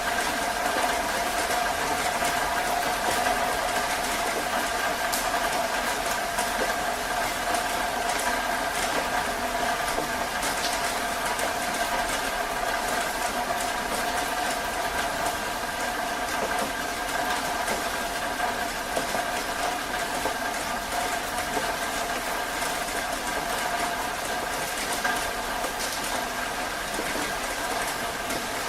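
Heavy rain falling steadily: a constant hiss with many scattered drop ticks, and a steady hum-like tone underneath.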